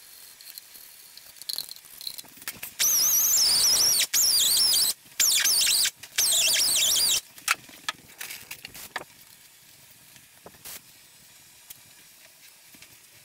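Four loud bursts of high, wavering squeal as the old gasket is cleaned off the engine block's oil pan mating surface, separated by short breaks and followed by scattered light clicks.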